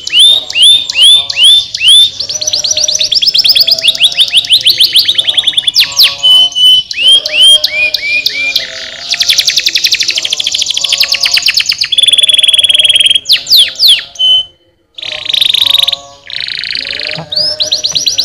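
Domestic canary singing a long song of rapid trills: runs of quick repeated chirps and sweeping notes that switch to a new phrase every second or two, with one short break about two-thirds of the way through.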